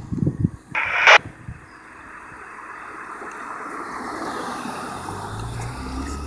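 Microphone handling noise: rubbing on the camera, with one sharp loud scrape about a second in, then a hiss that builds steadily. A low diesel engine rumble comes in near the end.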